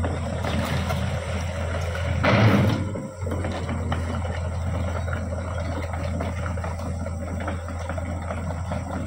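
Caterpillar 305.5E2 mini excavator's diesel engine running steadily with a constant low hum, with a brief louder rush of noise a little over two seconds in.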